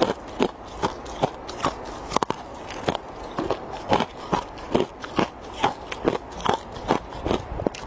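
A clear stick of thin ice being bitten and chewed: a steady run of sharp, brittle crunches, about two to three a second.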